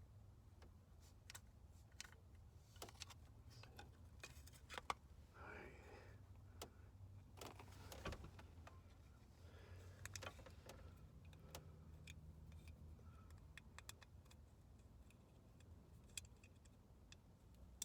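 Faint scattered clicks and light clatter of small engine parts being handled while a distributor rotor and cap are fitted, over a low steady hum.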